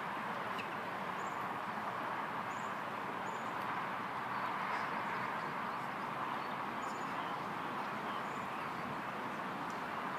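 Steady outdoor background hiss, with faint high bird chirps now and then.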